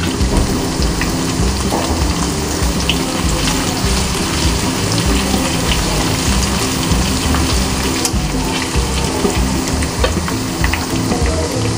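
Chopped garlic, ginger, cumin seeds and green chillies frying in hot oil in a nonstick wok: a steady sizzle with scattered crackles and pops. A silicone spatula stirs through it partway along.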